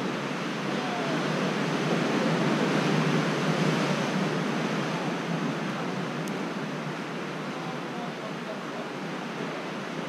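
Sea surf washing against the rocks below the cliff: a steady rush that swells about two seconds in and slowly eases off.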